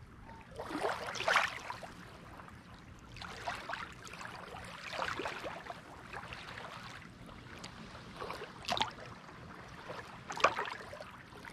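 Small lagoon waves lapping and washing up onto a sandy beach, in gentle swells a second or two long every couple of seconds, with a fizzing hiss as each wash spreads and drains.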